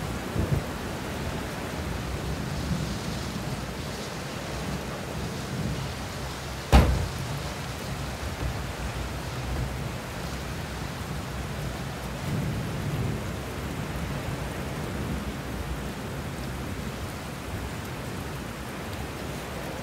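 Thunderstorm: steady rain with a low rumble underneath, and a single sharp crack about seven seconds in.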